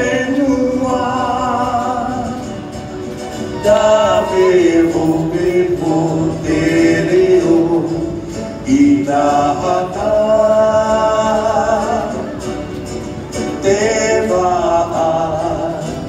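Tahitian song for the dance: voices singing long, held notes that slide between pitches, in phrases a few seconds long.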